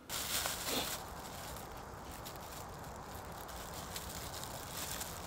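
Steady outdoor background noise, an even hiss with a low rumble, that starts abruptly, with brighter rustling in the first second.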